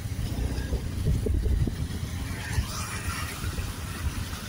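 Motorbike engine running steadily at low speed as the bike rides through shallow floodwater, with the wash of water around the wheels.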